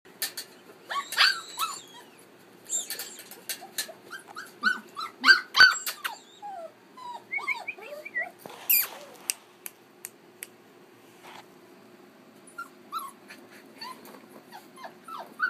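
Young Keeshond puppies giving many short, high yips and whines, each one falling in pitch, in scattered bouts. Sharp clicks and knocks come in between.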